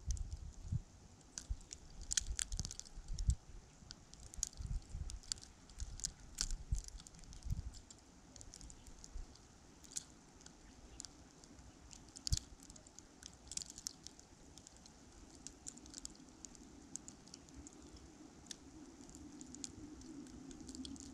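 Winter storm outdoors: wind buffeting the microphone in low gusts during the first several seconds, with scattered light ticks and crackles throughout. A faint steady hum builds near the end.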